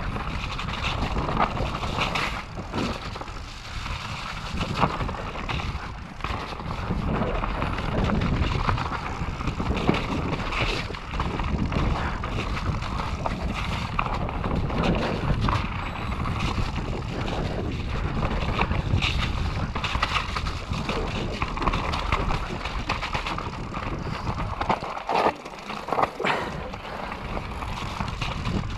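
Mondraker Chaser e-mountain bike riding downhill on a dirt trail: steady tyre noise over the ground with frequent knocks and rattles from the bike, and wind buffeting the microphone.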